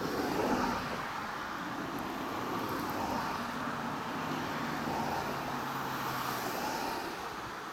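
Steady distant vehicle noise with slow swells, and a low hum from about four seconds in that stops a couple of seconds later.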